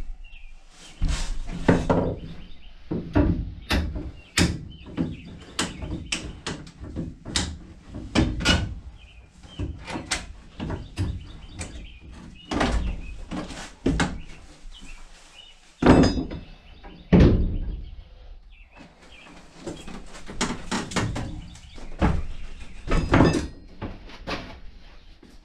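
Irregular knocks, thuds and bangs of wood and sheet metal, roughly one a second, as rotten wooden wall studs are broken out from against a camper's metal outer skin. Two sharper bangs stand out a little past the middle.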